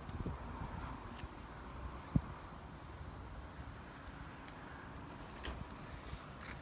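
Faint outdoor evening ambience with a steady high-pitched insect chirr and a single short knock about two seconds in.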